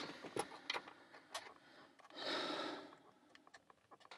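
Scattered light clicks from a Master Lock 130 padlock and picking tools being handled as the lock is picked open, with an audible exhale of breath about two seconds in.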